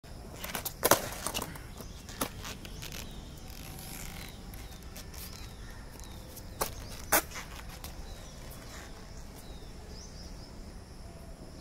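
Skateboard clacking on concrete during trick attempts: a quick cluster of sharp clacks about a second in, another clack a second later, then two more around six and seven seconds. Birds chirp faintly near the end.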